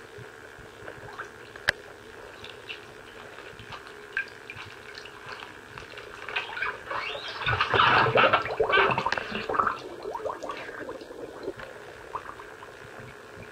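Shallow standing water in a shower tray sloshing and splashing as a leather boot moves through it: faint drips and small splashes at first, then a louder run of splashing and sloshing for a few seconds in the middle.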